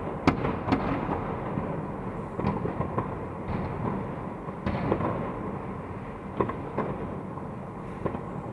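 Fireworks going off across the city: separate sharp bangs every second or so over a continuous rumble of more distant explosions, the loudest just after the start.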